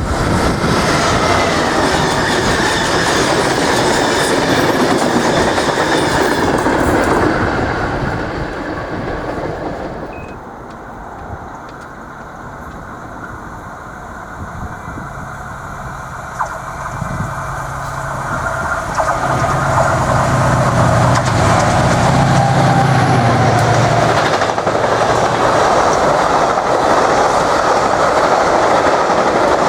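Freight trains passing at speed, the wagons' wheels clattering and rumbling over the track. The sound drops away about ten seconds in, then a low steady drone builds and a train's wagons pass loudly again through the second half.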